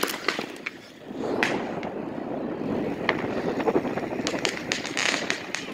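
Bicycle rolling along a paved street: a steady rolling rumble from the tyres, with scattered sharp clicks and rattles.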